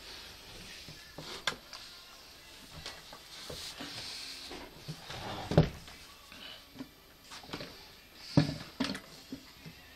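Handling noise: scattered knocks, bumps and rustling from the phone and the man moving at the digital piano, with a sharp knock about halfway through and another about three seconds later.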